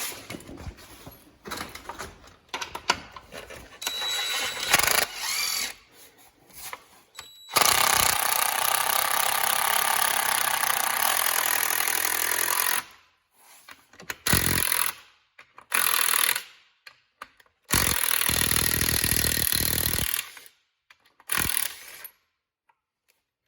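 Knocks and clatter of parts being handled, then a power drill running: one steady run of about five seconds, then several shorter bursts, each stopping abruptly. The drill is boring or driving screws through a plastic grille into aluminum.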